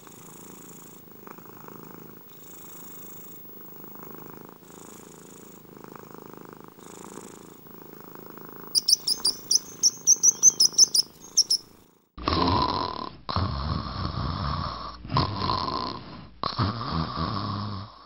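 A cat purring softly, with slow sleep breathing about every two seconds. About nine seconds in comes a brief flurry of small-bird chirps. From about twelve seconds on there is loud cat purring in four long bouts.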